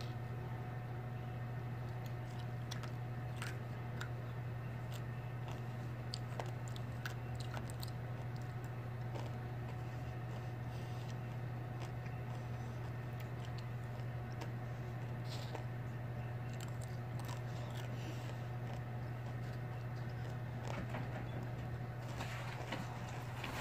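Candy-coated chocolates (Smarties) being picked up and crunched, heard as scattered faint clicks and crunches over a steady low hum.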